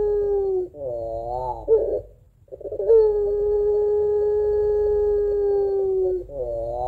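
Puter pelung, a ringneck (Barbary) dove bred for its long call, cooing: a long steady note that sags at its end, then a short quavering two-note finish. After a brief pause the long note comes again for several seconds, and the quavering finish returns near the end.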